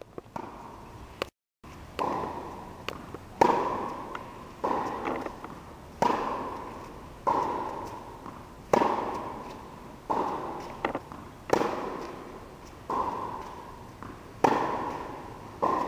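Tennis rally: a ball struck by rackets and bouncing on the court, a sharp pop about every 1.3 s, the loudest every two to three seconds. Each pop rings out in the echo of a large indoor hall.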